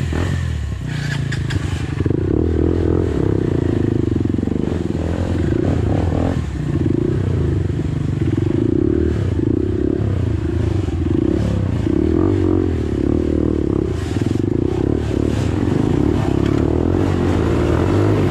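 Honda CRF150L's single-cylinder four-stroke engine running at low revs, the revs rising and falling over and over as the dirt bike is worked over a rutted, rocky trail.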